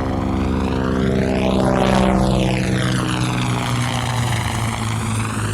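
Helicopter sound effect run through a Doppler shift effect set to a high speed of 206 metres a second. A steady engine-and-rotor drone carries a sweeping, swirling tone and swells to its loudest about two seconds in as it passes.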